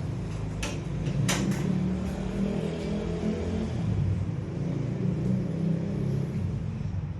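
Aluminium sliding wardrobe door rolling along its track: a steady low rumble with a few sharp clicks in the first two seconds.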